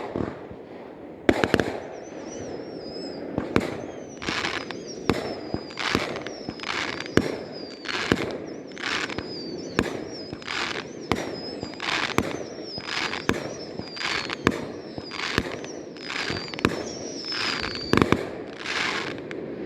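Fireworks going off: a few sharp bangs, then a long run of crackling bursts at about two a second, with a high wavering whistle over most of it.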